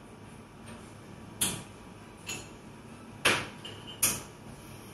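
Cafe ambience: steady background room noise broken by four sharp clinks and knocks over about three seconds. The two loudest come about three and four seconds in, and a brief high ring follows the first of them.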